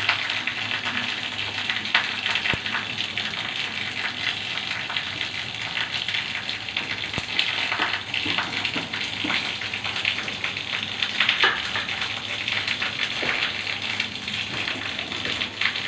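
Hot oil left over from frying rui fish, sizzling steadily in a frying pan with small crackles and a few louder pops from the fried bits still in it.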